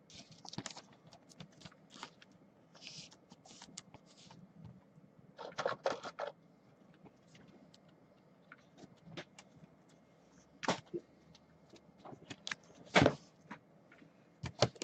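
Faint, scattered clicks, taps and short rustles of trading cards being handled on a table, with a few louder bursts around the middle and near the end.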